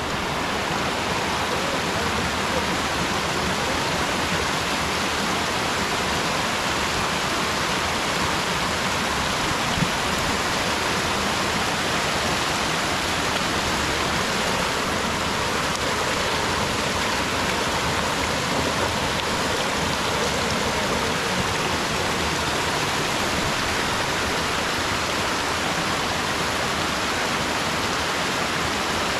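River water rushing, a steady noise with one faint click about ten seconds in.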